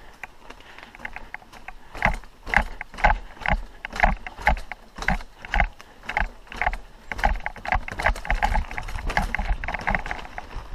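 Mountain bike on a dirt trail, heard through a helmet-mounted GoPro, with rattling knocks in a steady rhythm of about two a second that start about two seconds in.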